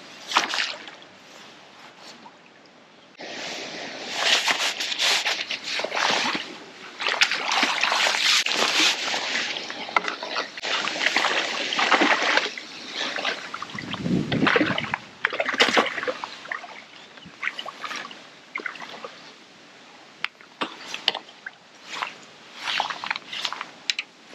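Water splashing and sloshing in irregular bursts, heaviest through the middle, as a hooked fish thrashes at the surface close to the bank while it is played in.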